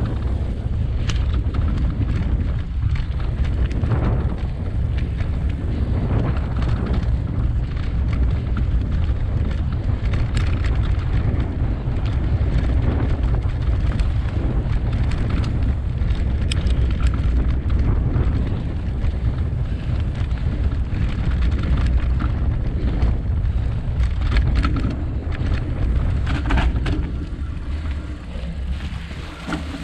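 Mountain bike riding fast down a dirt trail covered in dead leaves: wind buffeting the camera microphone as a steady rumble, with tyre noise and frequent rattles and clicks from the bike over rough ground. The noise dies down near the end.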